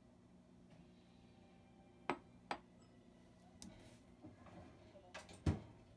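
Light clinks and knocks of kitchenware being handled in a quiet room: two close together about two seconds in, a faint one in the middle, and a pair near the end, the last the loudest.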